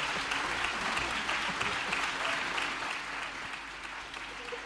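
A large audience applauding, a dense steady clapping that eases slightly about three seconds in.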